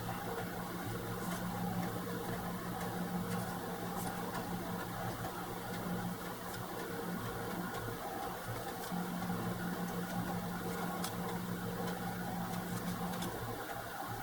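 Steady low hum of a running motor or appliance, with a few faint sharp clicks now and then.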